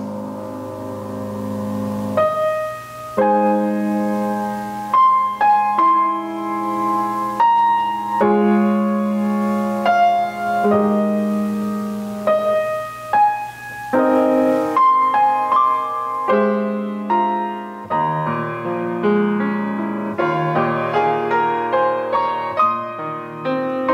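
Grand piano played solo: slow, held chords at first, then quicker, busier notes from a little past halfway.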